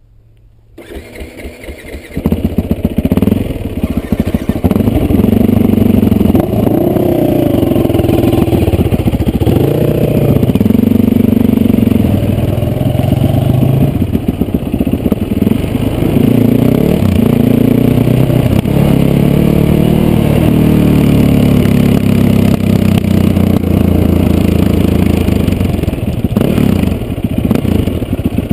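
Yamaha WR450F supermoto's single-cylinder four-stroke engine being ridden, revving up and dropping back again and again as it is worked through the gears. It comes in over the first two seconds.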